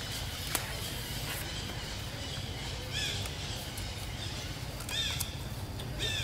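Baby monkey giving a few short, high-pitched squeaks, each rising and falling in pitch, about three, five and six seconds in, over a steady low rumble.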